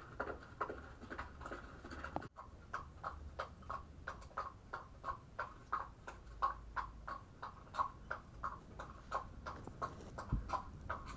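Imitated hoofbeats for a galloping toy horse: a rhythmic clip-clop of short sharp clicks, about three a second.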